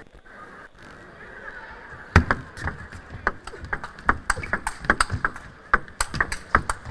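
Table tennis rally: the ball clicking off the table and the players' bats, about three or four sharp hits a second. It starts with the serve, the loudest hit, about two seconds in, after a quiet opening.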